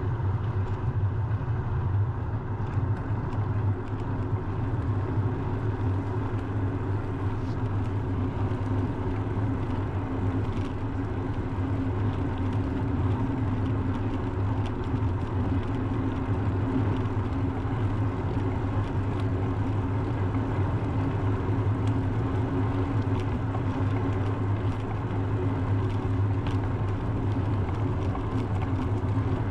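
Steady low rumble of wind and road noise on a bicycle-mounted action camera's microphone while riding, with no break or change.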